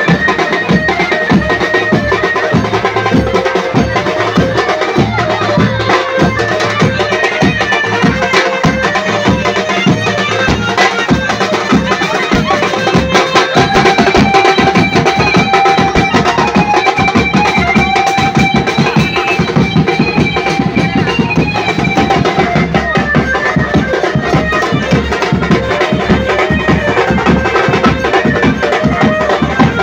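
Ganesh procession music, loud: drums beaten in a fast, steady rhythm with a melody line playing over them.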